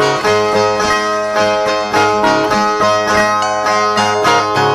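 Two steel-strung violas, the resonator violas of Northeast Brazilian repentistas, playing the instrumental break between sung stanzas: a quick, even strummed and plucked rhythm on a repeated few chords.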